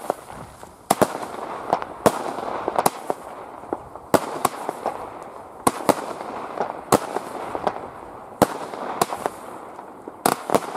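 Leslie Gold consumer firework battery firing shot after shot, a sharp bang roughly every second, with the crackle of the bursting stars filling the gaps between bangs.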